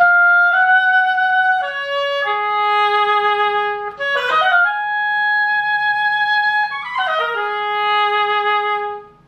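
Solo woodwind playing a slow melody of held single notes. Quick runs of notes come about four and about seven seconds in, and it ends on a long low note that fades out.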